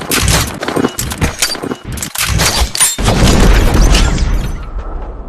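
A rapid string of loud bangs and crashes like gunfire and explosions, turning about three seconds in into a continuous rumbling roar that slowly fades.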